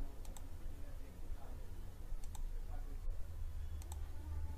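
Three computer mouse clicks spaced a second or two apart, each a quick double tick of button press and release, as points are picked on screen. A steady low hum runs underneath.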